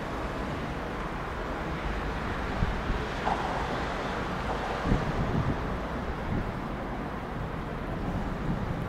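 A train running past: a steady rumbling rush of wheels on track, with wind on the microphone and a few light knocks near the middle.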